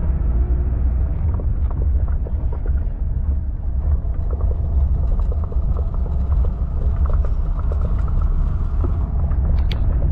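Safari jeep driving along a bumpy dirt track: a steady low rumble with scattered knocks and rattles from the vehicle jolting over the ruts.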